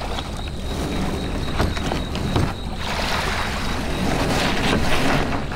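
Wind buffeting the microphone at the water's edge, with a few knocks and clatters as gear is handled on a plastic fishing kayak.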